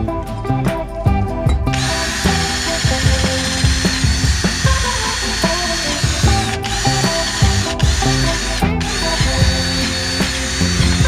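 Power tool motor running with a steady high whine, in long runs stopped briefly three times, with background music.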